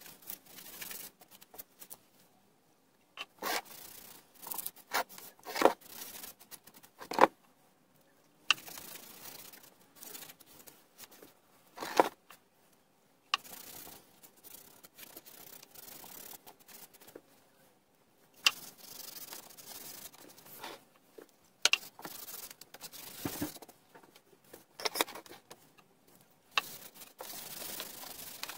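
Gloved hand wiping wood dye onto a wooden frame with a cloth: stretches of soft rubbing with pauses between them. The rubbing is broken by a number of sharp knocks and clicks as the work and the tin are handled.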